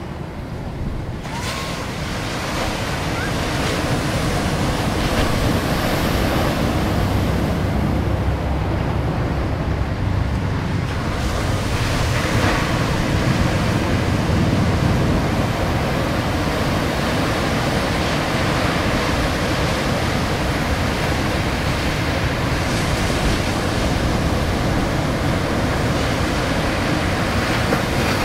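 Ocean surf breaking and washing steadily, with wind blowing across the microphone. The noise grows louder over the first few seconds, then holds steady.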